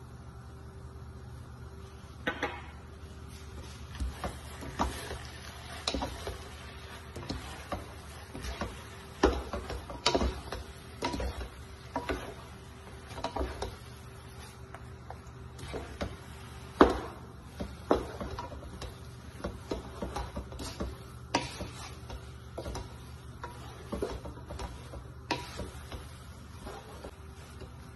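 Wooden spatulas knocking and scraping against a metal pot as rice noodles are tossed, in irregular clacks about once a second, over a steady low hum.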